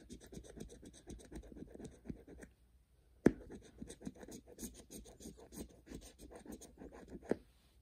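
Rapid back-and-forth scratching of a scratch-off lottery ticket's coating with a round scratcher, in quick strokes, with a short pause and a sharp tap about three seconds in.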